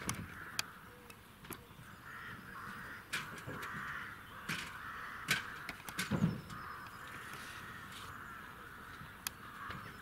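Birds cawing over and over, with scattered sharp clicks and knocks throughout; the loudest is a dull knock about six seconds in.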